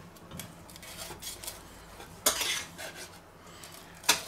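Carving knife slicing through a crisp-skinned duck breast on a wooden cutting board, steadied by a steel carving fork: light scrapes and clicks of blade and fork, a louder scraping cut about two seconds in, and a sharp tap of the knife on the board near the end.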